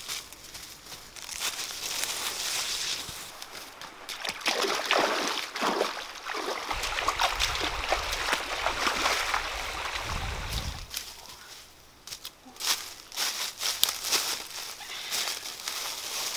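Water sloshing and splashing as someone wades through a shallow, rocky stream, with scattered sharp knocks and rustling near the end.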